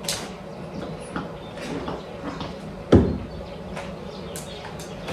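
Light handling noises, small clicks and rustles, with one dull thump about three seconds in, the loudest sound here.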